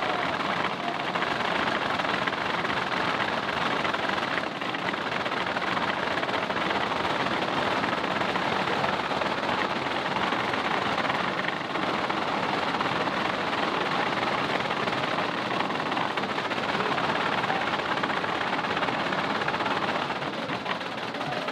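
Large wooden crank rattles (Ratschen, the clappers that replace church bells in Holy Week) being cranked, giving a continuous, rapid wooden clattering.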